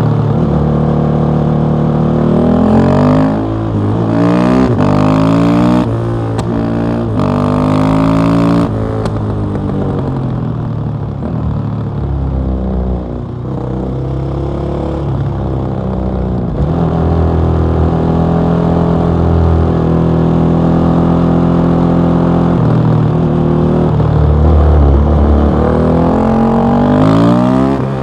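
KTM 660 SMC's single-cylinder engine through an Akrapovic exhaust, accelerating through several quick upshifts in the first nine seconds, the pitch climbing and dropping at each shift. It then holds a steadier speed and pulls up through the revs again near the end.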